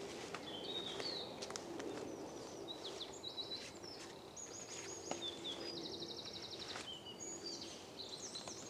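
Woodland birdsong from several birds: varied short whistles and chirps, with a fast trill of rapidly repeated notes a little past the middle. A faint low steady hum comes and goes underneath.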